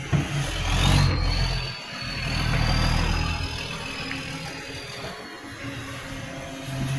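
Garbage truck's diesel engine running and revving up twice, loud and rumbling through an exhaust leak, with a high whine that rises about a second in and fades out later.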